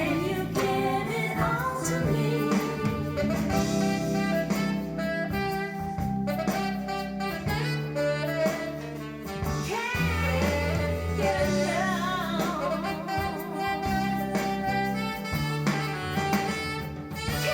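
Pop song played back through Kenwood LS1800 loudspeakers driven by a Sansui AU-555A amplifier. This is an instrumental break between sung lines: a wavering lead melody over a steady bass line and beat.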